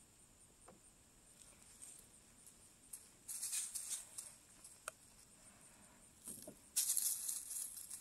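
Gloved hands digging and scooping through loose, dry peat–vermiculite–compost soil mix and dry leaf mulch, making a rustling, crumbling rattle. It starts about three seconds in and is louder and steadier from about seven seconds.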